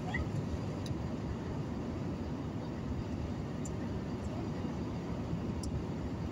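Steady low rumble of a car driving along a highway, heard from inside the cabin: a mix of tyre, wind and engine noise.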